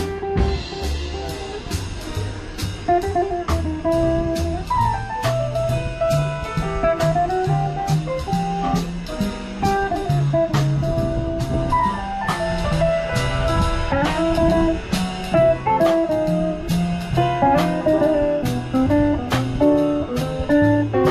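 Background music: a blues-jazz tune with guitar, bass and a drum kit keeping a steady beat.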